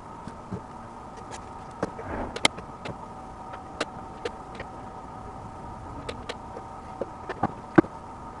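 Scattered sharp clicks and snips from working on a lithium-ion battery pack: tin snips cutting nickel strip and the plastic cell holders being handled, over a steady hum. The loudest click comes near the end.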